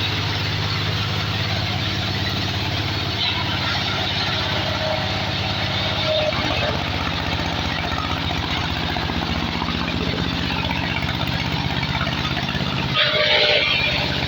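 Engine of a wood sawdust machine running steadily at an even speed, with a short louder burst of noise near the end.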